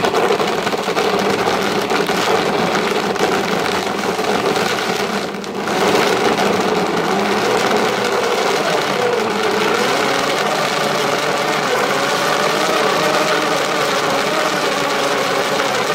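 A Sinbo Super Blender's 1600-watt motor running continuously, its blades mincing frozen chunks of red meat in the jar into keema. The sound dips briefly about five seconds in, then runs on steadily with a wavering whine.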